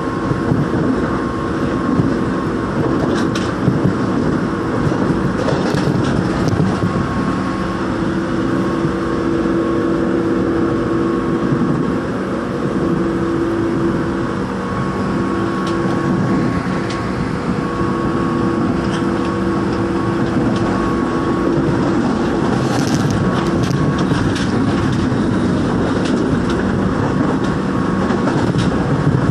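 A Seoul Line 1 rheostat-control electric train ('신저항' EMU) running at speed, heard from inside the passenger car: a steady rumble of wheels on rail. Over it runs a steady whine that fades in and out, with a few brief clicks.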